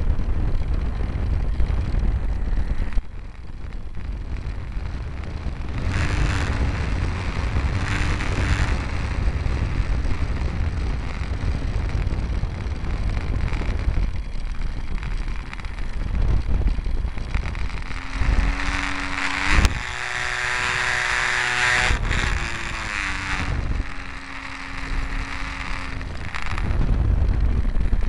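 Wind buffeting an onboard camera microphone on a Multiplex FunCub RC plane, over the whine of its electric motor and propeller. Around two-thirds of the way through the whine grows louder and jumps up in pitch for a few seconds as the motor is throttled up, then drops back.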